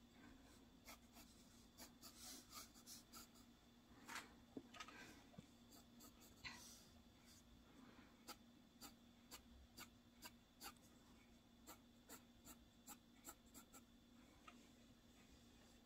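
Faint graphite pencil scratching on sketchbook paper: many short strokes and light taps, with a few longer shading strokes in the first half, over a faint steady hum.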